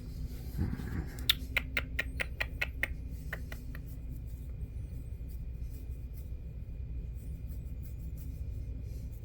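A quick run of about ten light clicks over two seconds, starting about a second in, over a steady low hum.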